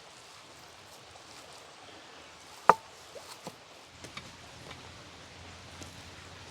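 One sharp, loud knock like a chop about two and a half seconds in, with a brief ring, followed by a few much lighter taps, over a faint steady background hiss.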